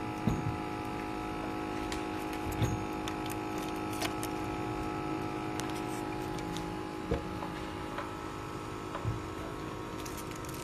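Steady electrical hum of an LCD polarizer-removing machine running, with a few light knocks as a phone screen is handled on its metal lid.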